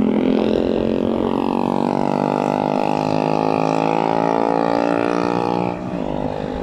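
Engine running at a steady speed, a low buzzing drone that eases off about six seconds in.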